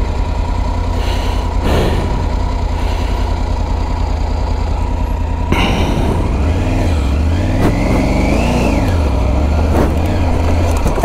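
Triumph Tiger 900 GT Pro's three-cylinder engine idling, then revved about halfway through, its pitch rising and falling as the bike pulls away over rough ground.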